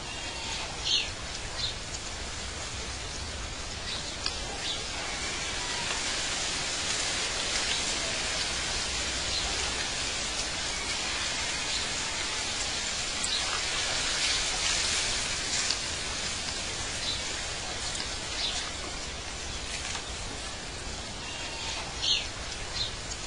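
Birds chirping now and then over a steady rushing hiss, like wind or running water, which swells in the middle.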